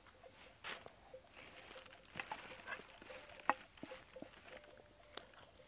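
Faint scattered clicks and crinkling, with one sharper click about three and a half seconds in: small handling noises of food and utensils while someone eats.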